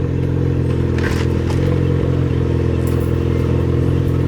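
Car engine idling steadily through its exhaust at an even pitch, with a few faint clicks over it.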